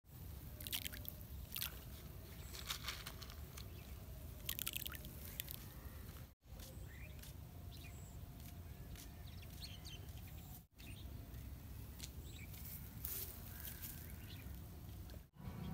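Quiet pond-side ambience: a steady low rumble of wind and handling noise with scattered short rustles and clicks. The sound drops out briefly three times where the clips are cut.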